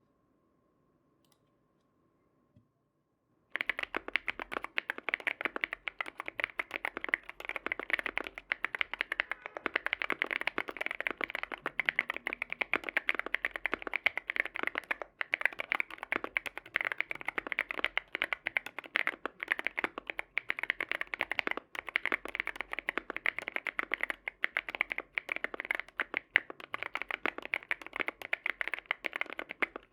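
Fast typing on a Sugar65 mechanical keyboard with factory-lubed Tecsee Ice Mango tactile switches, a PC plate and a heavily foamed case: a dense, steady run of keystroke clacks. It starts abruptly about three and a half seconds in, after near silence.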